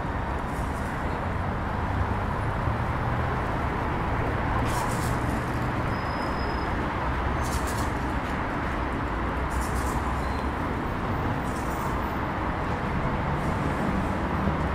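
Street ambience: a steady rumble of car traffic on the road alongside, with brief faint hisses every couple of seconds.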